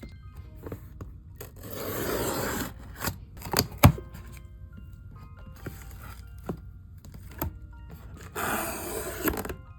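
A shipping package being opened by hand: two spells of tearing and rustling packaging, with a few sharp knocks between them. Soft background music plays underneath.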